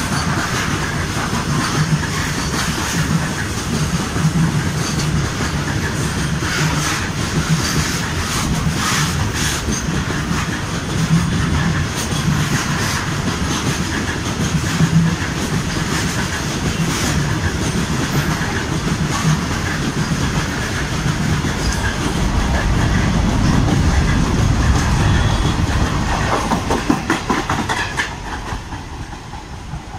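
Rake of BCNA covered freight wagons rolling past close by, their wheels clattering rhythmically over rail joints above a steady low rumble. The sound swells as the last wagons and the brake van go by, then falls away near the end.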